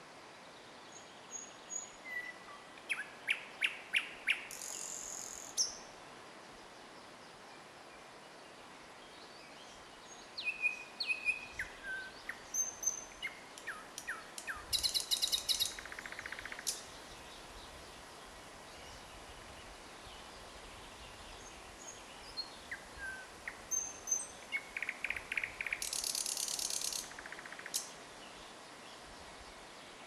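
Nightingale singing: three phrases of whistled notes, quick repeated strokes and fast rattling trills, each a few seconds long and separated by pauses of several seconds.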